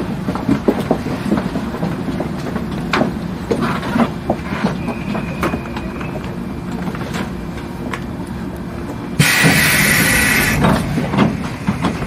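Electric train standing at a station, heard from the driver's cab: a steady low hum with scattered clicks and knocks. About nine seconds in, a loud hiss of compressed air lasts about a second and a half.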